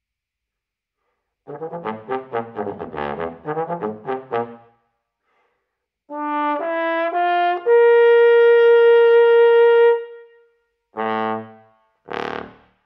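Bass trombone playing unaccompanied: a fast run of short tongued notes, then three notes climbing to a long high held note, followed by two short separate notes near the end.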